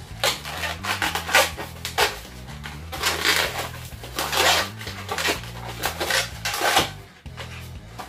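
Latex balloons squeaking and rubbing against each other as a long modelling balloon is twisted and wrapped around a round balloon, in a run of loud rubbing squeaks that stop about seven seconds in. Background music plays underneath.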